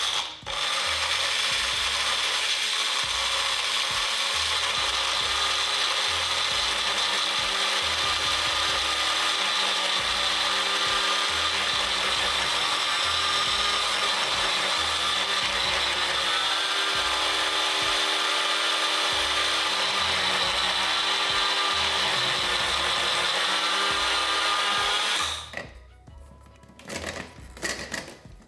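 Small blender with a milling blade running steadily, grinding dried oregano, salt and spices into a powder, with a brief dip just after it starts. The motor cuts off a few seconds before the end, and a few light knocks follow.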